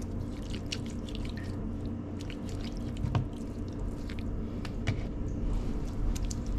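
Hands working a wet seasoning paste onto raw fish: soft, irregular squishes and small clicks, over a steady low hum.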